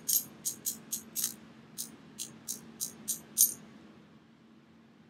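Ratchet of Craftsman 49285 hose pinch-off pliers clicking as the handles are squeezed shut: about a dozen sharp metal clicks, three or four a second, stopping about three and a half seconds in.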